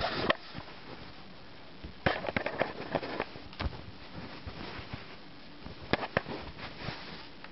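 Handling and rummaging noises from someone searching for a small part: sharp clicks, knocks and rustling in three bursts, at the start, from about two seconds in, and again near the end.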